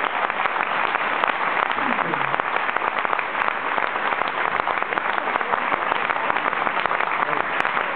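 An audience applauding steadily after a song, a dense unbroken clatter of many hands clapping, with a few voices mixed in.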